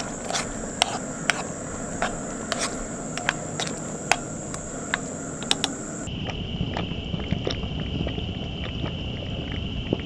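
A frying pan of thick tomato stew simmering on a camp stove, with irregular sharp pops and clicks over a steady bubbling. A steady high insect drone runs underneath; after a cut about six seconds in it gives way to a lower, steady insect trill, and the sound fades out at the end.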